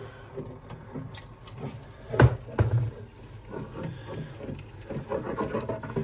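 Light handling sounds, with a sharp knock about two seconds in and a smaller one just after, as a stainless steel flask is brought against the plastic walls and evaporator of a refrigerator's freezer compartment.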